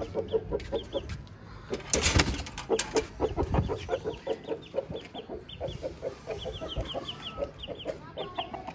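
Aseel chickens clucking in a quick run of short notes, with thin high chirping notes over them. A brief loud rattle about two seconds in.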